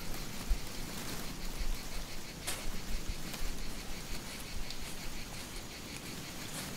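Outdoor background noise: a steady hiss with uneven low rumbling and one sharp click about two and a half seconds in.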